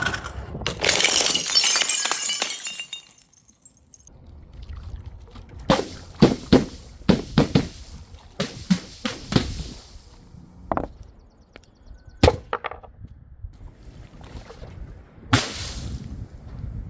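Glass shattering, with a bright crash of breaking glass and scattering shards over the first few seconds. A quick run of sharp clinks and knocks follows from about six seconds in, then a few single knocks and a short crash near the end, with some pouring and splashing of liquid.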